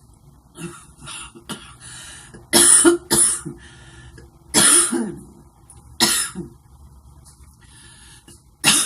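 A young woman coughing repeatedly: a run of harsh coughs, about five loud ones with smaller coughs and throat-clearing between, a cough she puts down to the cigarettes she smokes.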